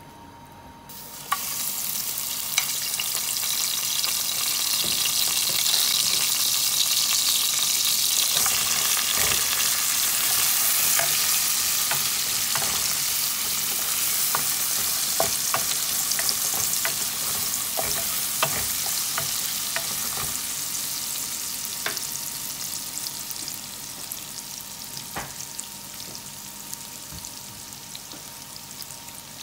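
Minced garlic and ginger, with bay leaf and cinnamon bark, hitting hot vegetable oil and sizzling, starting suddenly about a second in. A wooden spoon stirs them, with scattered clicks of the spoon against the pot, and the sizzle eases off near the end.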